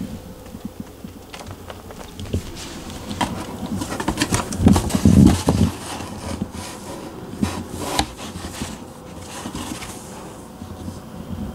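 A cat moving about in and against a cardboard box: irregular scuffs, rustles and dull knocks on the cardboard, with the loudest thumps about five seconds in and a sharp knock near eight seconds.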